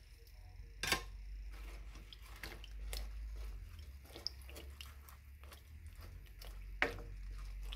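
Wooden spoon stirring chunks of eggplant and potato in a pot of water, with soft sloshing and squishing and a few light knocks against the pot, the sharpest about a second in and near the end. A low steady hum runs underneath.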